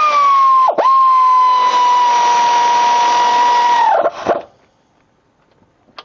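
Power drill spinning a deep-wall socket to run a wheel's lug nut on: a steady motor whine that stops twice briefly near the start, sags slightly in pitch, and winds down about four seconds in.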